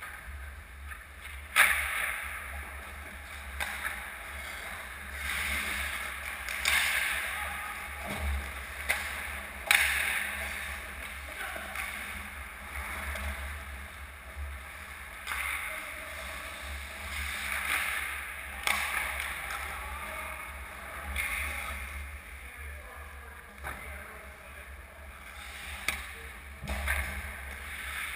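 Ice hockey skates scraping and carving on the rink ice, with sharp cracks of pucks and sticks, the loudest about a second and a half in and again near ten seconds, over a steady low arena hum.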